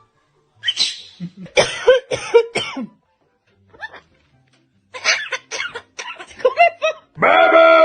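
Pet parrot vocalizing: two runs of short, sharp sounds in quick succession, then one long pitched call near the end.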